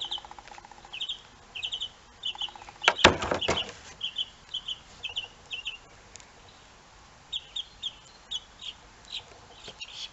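Small bird chirping over and over in quick groups of two or three high notes. A brief, loud rattle about three seconds in.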